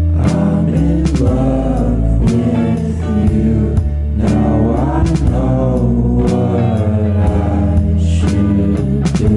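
Background music: a song with a singing voice over guitar, bass and a steady drum beat.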